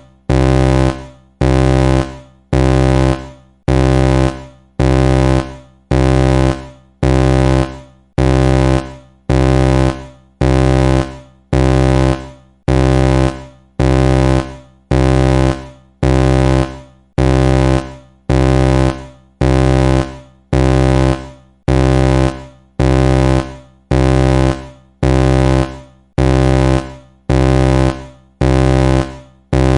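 Synthesized hurricane-warning alarm sound effect: a loud, low, buzzing blare at one steady pitch, repeated about once a second, each blast cutting off into a short fade.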